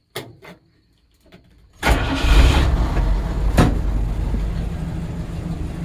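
A few light clicks, then the old truck's engine catches about two seconds in. It revs up loudly as it fires and settles into a steady idle, starting right up on a cold morning start.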